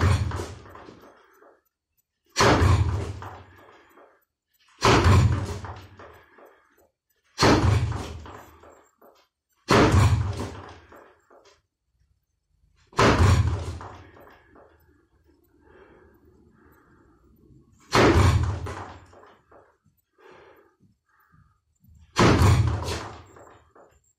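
Bare-fist lead-hand jabs (kizami zuki) striking a padded wooden makiwara post: eight deep, heavy thuds, mostly about two and a half seconds apart with one longer pause midway, each trailing off over about a second.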